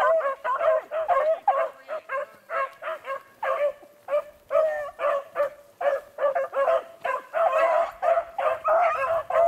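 A pack of beagles baying on a rabbit's trail, several hounds giving tongue together in short overlapping bays, about two a second, without a break.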